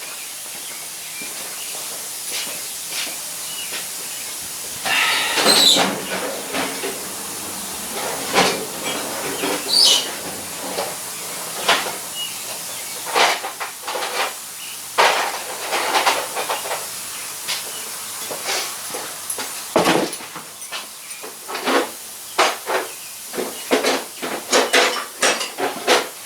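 Metal tool clinking, tapping and scraping against a zero-turn mower's wheel hub while prying at its grease cap. Many short irregular knocks, with a busier scraping stretch about five seconds in.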